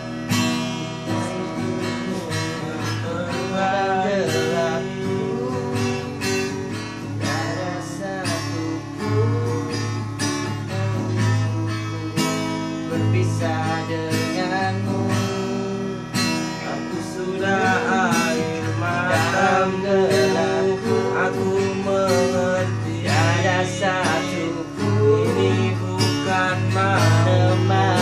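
Acoustic guitar strummed through a song's instrumental passage. A wavering melody line rises over it now and then, strongest in the second half.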